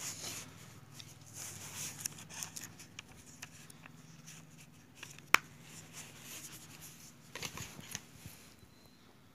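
Soft scratchy rustling from a makeup brush and palette being handled, with one sharp click about five seconds in, over a faint low hum.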